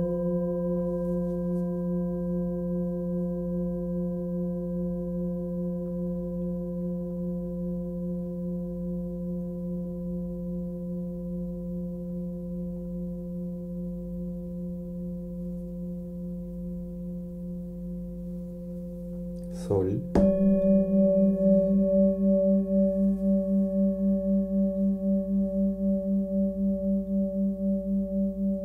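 Hand-forged Tibetan singing bowl ringing after a mallet strike: a deep hum with a few higher overtones, slowly fading with a gentle wavering pulse. About twenty seconds in a bowl is struck again, and its louder, slightly higher ring pulses in a steady wobble.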